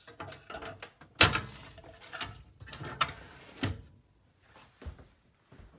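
RV kitchen fittings being handled: a sharp knock about a second in, then several lighter knocks and rattles, dying down to a few soft thuds near the end.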